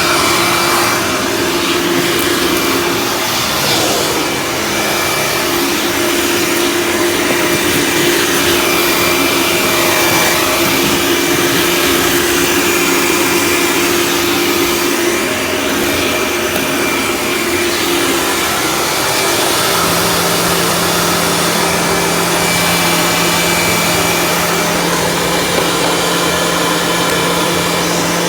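Dirt Devil Ultra Vision Turbo upright vacuum cleaner running steadily over carpet. Its hum drops to a lower note about two-thirds of the way through.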